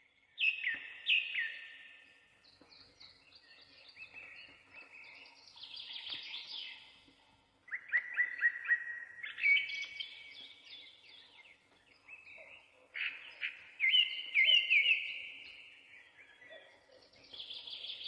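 Several songbirds singing at once in a forest. Their overlapping phrases are made of quick repeated notes and trills, with the loudest runs about eight seconds in and again about thirteen to fifteen seconds in.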